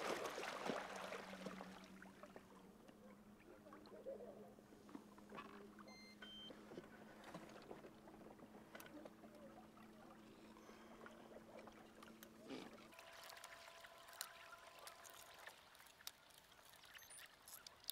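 Electric trolling motor on an inflatable boat running with a faint, steady low hum that cuts out about thirteen seconds in, followed by a few faint clicks.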